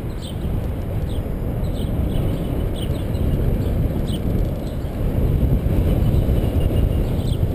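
Wind rushing over the microphone and tyre rumble from a moving bicycle, a loud steady low noise. Short high chirps come and go over it about every half second to a second.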